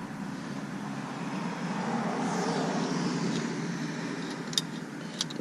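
A vehicle passing by, a rumble of traffic noise that swells to a peak midway and then fades. Two light clicks come near the end.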